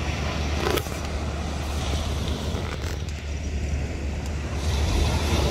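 Wind rumbling on the microphone over the wash of small waves on a shingle beach, with a short knock about a second in.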